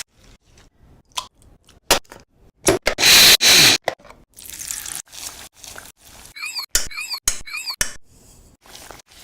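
Food-preparation sounds: a choppy run of short clicks, taps and scrapes, with a loud hissing burst about three seconds in and a few quick squeaks near the middle.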